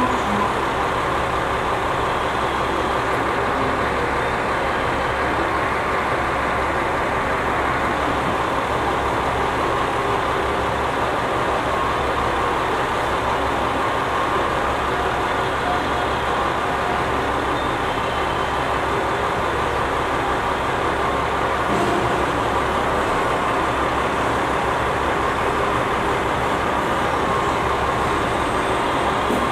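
A diesel railcar's engine running steadily with a low, even rumble as the railcar draws slowly up to the platform and stands.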